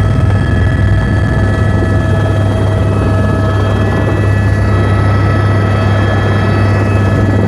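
Helicopter close by as it comes in to land: a loud, steady low rotor throb with a steady high-pitched turbine whine over it.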